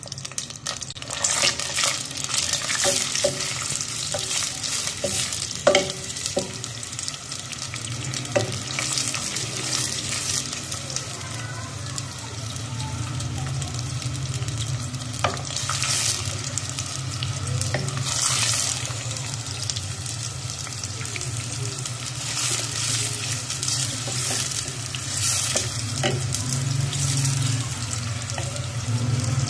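Sliced onions sizzling as they fry in oil in a metal pot while being browned, stirred with a wooden spatula that knocks against the pot now and then. A low steady hum sits underneath from about eight seconds in.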